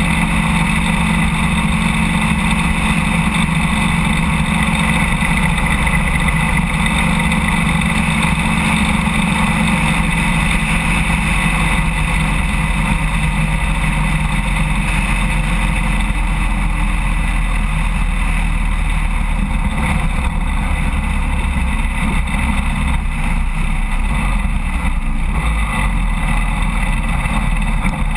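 Harley-Davidson Road King's V-twin engine cruising at highway speed, with steady wind rush over a low-mounted camera near the front wheel. About halfway through, the engine note drops as the bike eases off.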